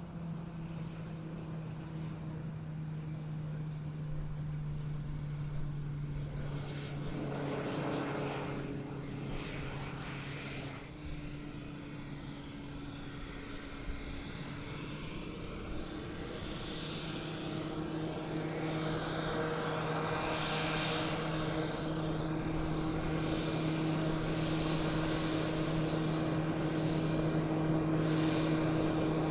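RFB Fanjet 600 trainer's ducted fan, driven by an Allison 250 turboshaft, running as the aircraft rolls out and taxis: a steady drone with a higher whine, growing louder toward the end as it comes closer.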